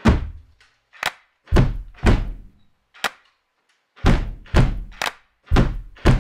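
Heavy percussive hits, about ten, in an uneven rhythm of roughly two a second with short pauses, each sharp at the start with a deep, reverberant tail that dies away.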